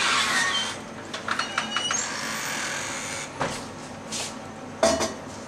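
Household handling noises: a rustle, then a quick run of small clicks, then two sharper knocks, the second being the loudest, near the end.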